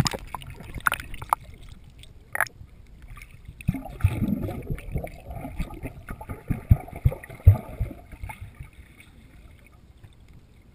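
Swimming-pool water heard through a waterproof camera at and under the surface: a few sharp splashes in the first couple of seconds, then muffled underwater sloshing and gurgling thumps from about four to eight seconds in, dying away near the end.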